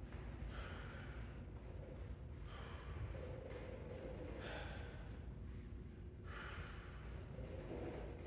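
A man's forceful exhales during shadow-boxing strikes, short breaths about one every two seconds, over a steady low hum.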